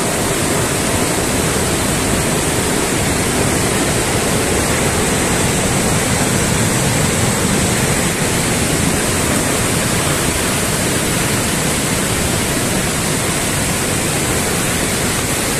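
Heavy monsoon rain making a steady, loud rushing hiss.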